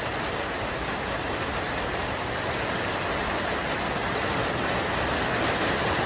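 Heavy rain pouring down, a steady hiss that grows slightly louder toward the end.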